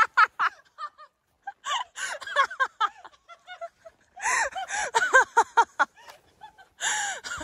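Several people's voices in short, high cries and laughs that rise and fall in pitch, coming in several bursts with quiet gaps between.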